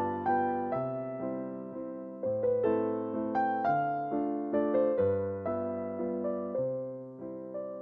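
Background music: a gentle electric piano melody with soft bass notes, a new note struck about every half second.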